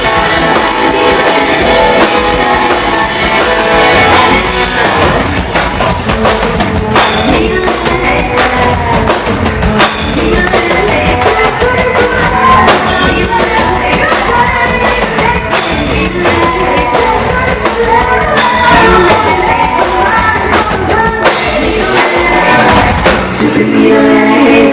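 Live rock band playing loudly in a large room: drum kit and guitars with a singer.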